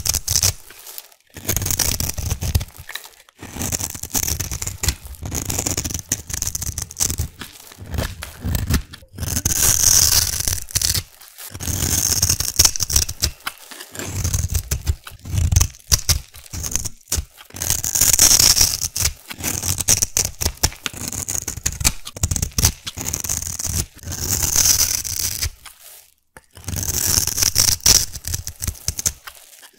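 Utility knife blade carving a grid of small cubes into a bar of black soap: crisp scraping, crackling cuts in quick runs of strokes broken by short pauses.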